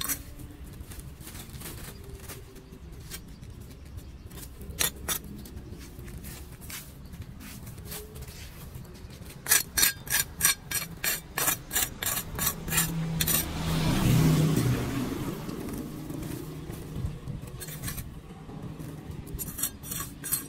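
Scraping and rustling as dry leaves and debris are cleared by hand off a metal storm-drain grate, with scattered sharp clicks and a quick run of clicks and scrapes on the grate about halfway through. A vehicle passes on the street about two-thirds of the way in, rising and then fading.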